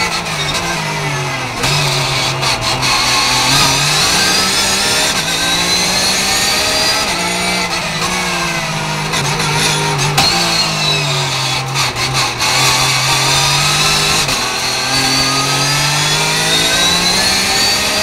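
Porsche 911 GT3 Cup (991 Gen. II) racing flat-six heard from inside the cockpit at full race pace. Its revs climb and fall again and again as the car accelerates between bends, then brakes and shifts down for them.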